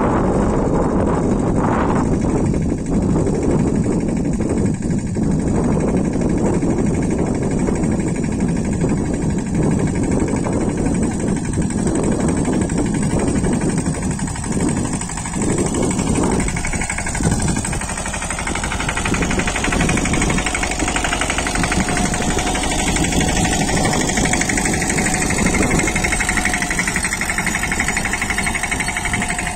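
Small farm tractor engine running steadily under load, pulling wooden blade hoes between crop rows.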